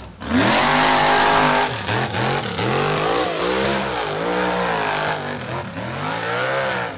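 Mega truck's engine revving hard, its pitch rising and falling again and again as the throttle is worked through a mud pit.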